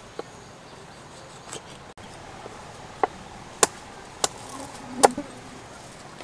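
Kitchen knife chopping on a thick wooden chopping board: about six sharp knocks at uneven intervals, the loudest about five seconds in.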